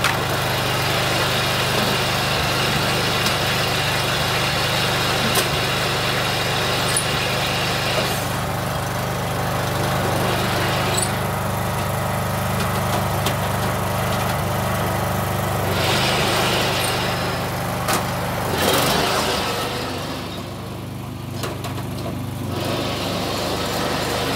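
Kohler 16.5 OHV small engine on a stripped-down riding mower running steadily just after starting. Its note shifts and dips past the middle as the mower is driven off under its own power.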